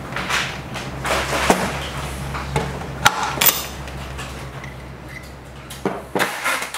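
Small metal parts of a BMW B58 variable-displacement vane oil pump being worked loose and set down on a metal workbench: scattered light clicks, scrapes and clinks, with a sharper click about three seconds in, over a steady low hum.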